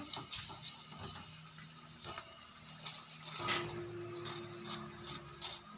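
Vadai frying in hot oil in a steel kadai: the oil sizzling and crackling with small pops while a wire-mesh strainer lifts the fried vadai out. A low steady hum sits underneath, a little stronger from about halfway.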